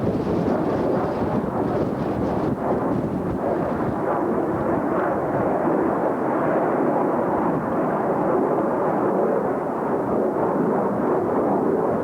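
Wind buffeting the camcorder's microphone: a steady, loud rumbling rush.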